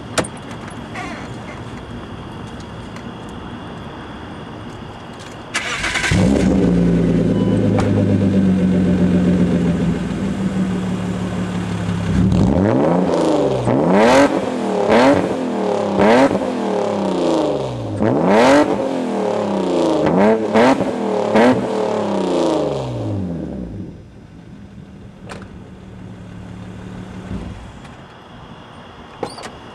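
A car door shuts right at the start, then about six seconds in the 1995 BMW E36 M3's S50 straight-six starts through a straight-piped exhaust with the muffler deleted and idles. From about halfway it is revved about nine times in quick succession, each rev rising and falling back, before it settles back down near the end.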